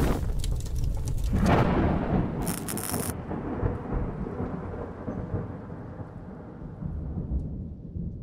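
Logo intro sound effect: a sudden deep rumble that swells in the first couple of seconds, with a short hiss about two and a half seconds in, then slowly dies away.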